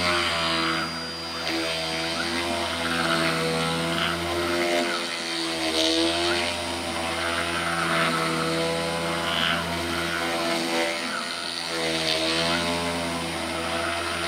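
DC spindle motor of a CNC router running while its 1/8-inch bit cuts pockets in aspen, held near 5,000 RPM by PWM speed control. A steady hum whose pitch wavers slightly, with patches of higher, hissy cutting noise every second or two.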